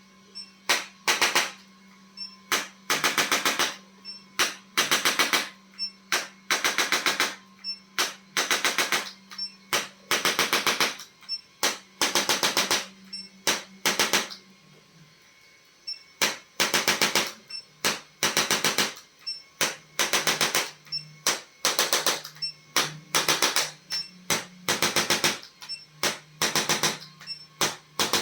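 A percussive treatment instrument firing bursts of rapid tapping, each burst under a second long with short gaps between, over a steady low hum.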